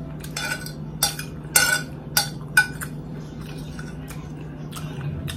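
A metal fork scraping and clinking against a dinner plate as the last grains of rice are gathered up. There is a quick run of sharp clinks and scrapes in the first couple of seconds, then a few fainter ones.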